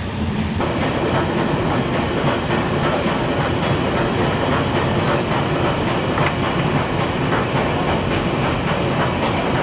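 Passenger train running on the track, its wheels rattling with a clickety-clack over the rail joints. It is a steady rumble scattered with short clicks, and it becomes fuller and louder suddenly about half a second in.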